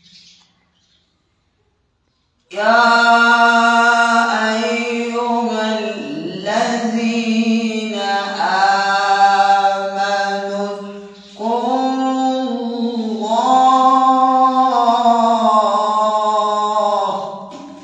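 A man's solo voice reciting the Quran in melodic tajweed style. After about two and a half seconds of quiet he begins the verse with a long drawn-out 'Ya', sung in held, ornamented notes that bend in pitch, with a brief break about eleven seconds in.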